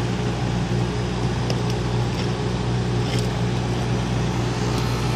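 York rooftop packaged air-conditioning unit running: a steady compressor hum under the rush of the condenser fan, the system freshly started and running while its R-410A charge is weighed in. A few faint ticks sound partway through.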